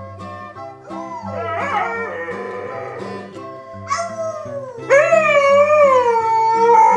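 A husky howling in long, wavering, sliding notes, loudest from about five seconds in, with a toddler howling along. Plucked-guitar background music plays underneath.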